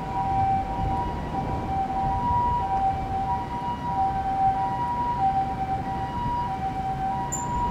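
Railway level-crossing warning bell ringing, two electronic tones sounding by turns in a steady alternation, over the low rumble of an approaching diesel freight train.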